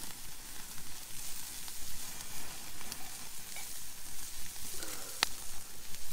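Shrimp and other food sizzling on a grill grate over a campfire: a steady hiss with scattered small crackles, and one sharp click about five seconds in.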